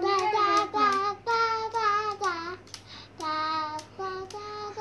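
A young girl singing a string of held, slightly wavering notes without clear words, in short phrases with a pause in the middle. A few light clicks fall between the phrases.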